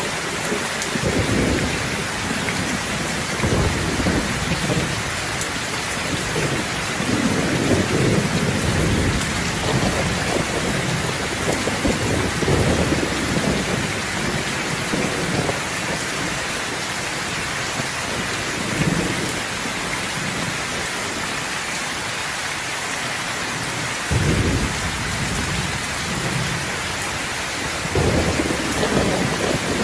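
Steady rain falling, with thunder rumbling in repeated low swells; two peals start suddenly, near the end of the storm's quieter stretch, about 24 and 28 seconds in.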